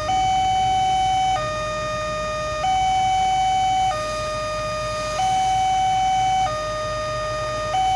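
Railway level-crossing warning alarm sounding: an electronic two-tone signal alternating steadily between a higher and a lower tone about every 1.3 seconds. It is the crossing's warning that a train is approaching, with the barrier down.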